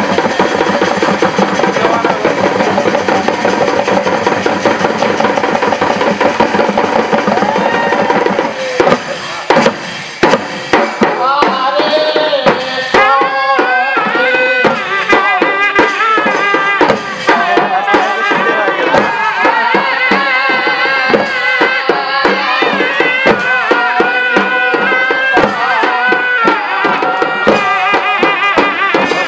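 Folk dance music with hand drums beating. About nine seconds in the music breaks off briefly and changes, after which a wavering melody runs over the drums.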